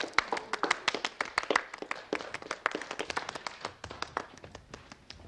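Several people clapping their hands in scattered, uneven applause that thins out and fades over the last couple of seconds.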